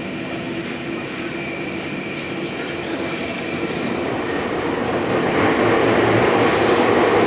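Running sound inside a Tokyu 5000 series subway car in a tunnel: steady whine from its Hitachi IGBT-VVVF traction drive over wheel-and-track rumble, the rumble growing louder from about five seconds in.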